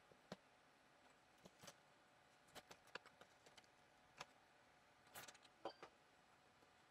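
Near silence: faint room tone broken by scattered faint clicks and taps at irregular intervals, a small cluster of them about five seconds in.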